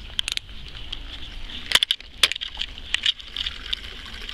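Handling noise as a carp rod and reel are grabbed on a bite: rustling and clicking, with two sharp knocks about halfway through.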